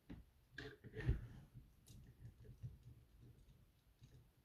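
Faint clicks and light knocks of plastic Bionicle and Lego parts being handled, a few sharper ones in the first second, then fainter ticks.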